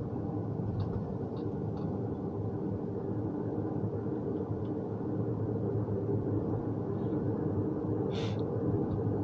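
Steady road and engine rumble inside a moving car's cabin, with a short sharp sound near the end.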